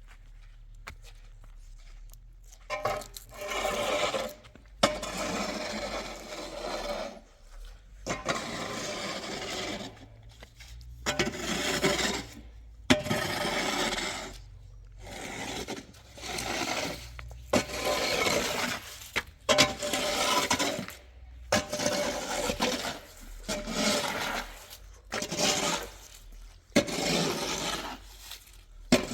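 Repeated scraping strokes, each lasting a second or two, with short pauses between them.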